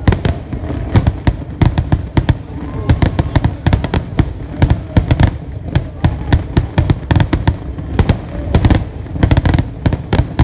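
Fireworks display finale: aerial shells bursting in rapid, unbroken succession, several sharp bangs a second with deep booms underneath.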